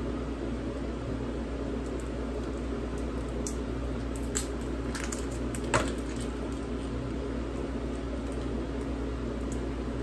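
Foil wrappers of beef bouillon cubes crinkling as they are unwrapped by hand: a few short crackles between about three and six seconds in, the loudest near the end of them, over a steady low hum.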